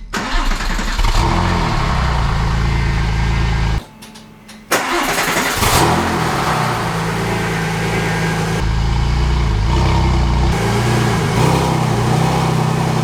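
Porsche 996 Turbo's twin-turbo flat-six starting and running, on its first start after new engine and fuel parts. The sound breaks off for about a second near four seconds in, then the engine is running again with a brief rev.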